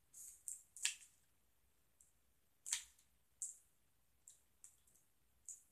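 Faint wet mouth clicks and smacks from chewing and sucking a soft, chewy sour gummy candy: several short clicks at uneven intervals.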